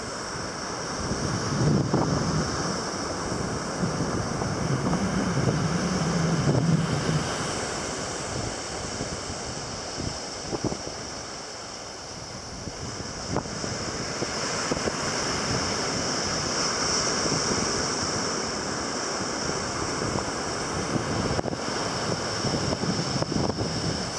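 Sea waves washing ashore, with wind gusting on the microphone in a low rumble that swells and fades.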